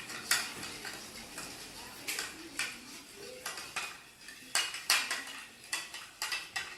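A spoon stirring baking soda into water in a container, clinking irregularly against its sides several times a second.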